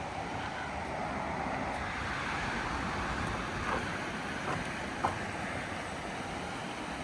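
Road traffic rushing past, a steady wash of tyre and engine noise that swells and eases. A few short sharp ticks sound about halfway through.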